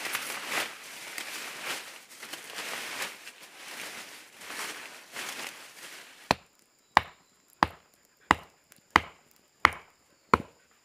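Leafy branches rustling as they are piled and pressed down. Then seven sharp, evenly spaced chops on wood, about three every two seconds.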